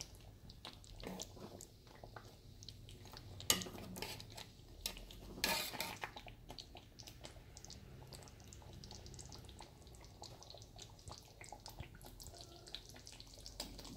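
A flat metal spatula scraping and knocking against a large black cooking pot as a beef and potato curry is stirred, with the curry sizzling and crackling throughout. The two loudest scrapes come about three and a half and five and a half seconds in.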